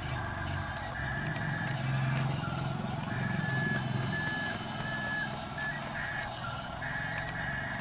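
Radio-controlled excavator and truck models working: a high electric whine that starts and stops in short stretches, stepping between two pitches, over a steady low hum.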